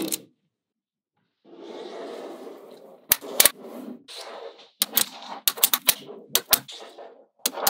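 Small magnetic balls (neodymium magnet balls) clicking and snapping together as blocks of them are pressed onto a bar, in quick clusters of sharp clicks from about three seconds in. Before that comes a rattling rustle of the balls shifting against one another.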